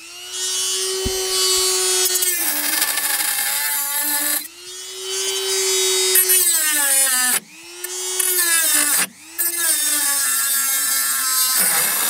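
Handheld rotary tool with a thin cut-off disc cutting sheet steel: a high motor whine over grinding noise, in four runs with short stops between. The pitch sags under load and winds down each time it is released.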